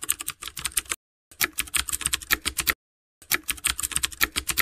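Typing sound effect: three runs of rapid key clicks, each a second or so long, with short silent gaps between them.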